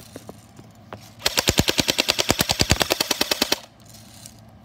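Burst of rapid machine-gun fire, about twelve even shots a second for a little over two seconds, starting about a second in.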